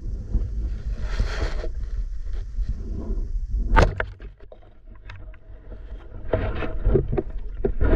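Water sloshing and splashing in bursts over a steady low rumble, with a few sharp clicks, one of them loud a little under four seconds in.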